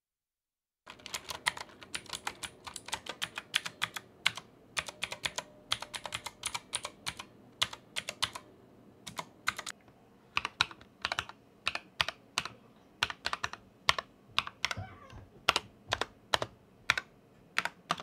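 Typing on an E-YOOSO Z737 mechanical TKL keyboard fitted with yellow three-pin linear switches: quick keystroke clacks starting about a second in, thinning to slower, spaced keystrokes in the second half.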